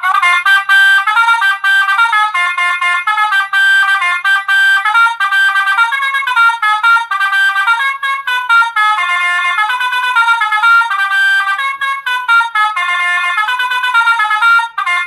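Vehicle reversing horn, a 12–24 V, 80 W three-sound unit, playing its electronic melody: a quick tune of buzzy stepped notes through the horn speaker.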